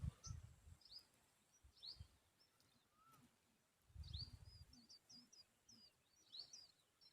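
Faint bird chirps: short, high, scattered notes, then a quick run of them from about four seconds in. Low rumbles come at the start and again around four seconds in.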